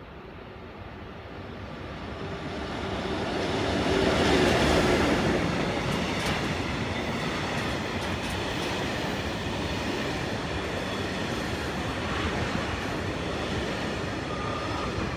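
Electric-hauled freight train passing close by. It grows louder as the locomotive approaches and is loudest about four seconds in as it goes past, then the flat wagons loaded with rails rumble and clatter by steadily until the sound cuts off suddenly.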